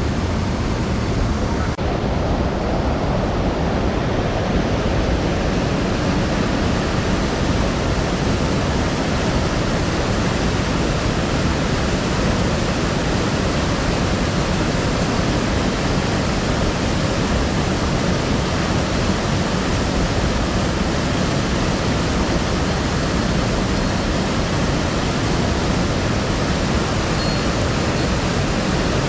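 Mountain headwater river rushing steadily, running high after heavy rain.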